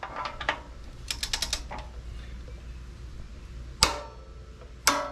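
Torque wrench on a rear shock's lower mounting bolt: a quick run of ratchet clicks about a second in, then a single sharp click near four seconds as the wrench reaches its 40 ft-lb setting.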